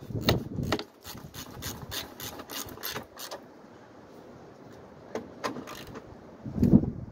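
Hand tools working on the car: a quick, uneven run of sharp clicks and scrapes for about three seconds, then a few more about five seconds in.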